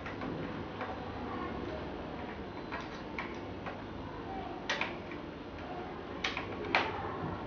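Light clicks and taps of plastic and metal parts as a wall switch board is opened, with a few sharper clicks in the second half.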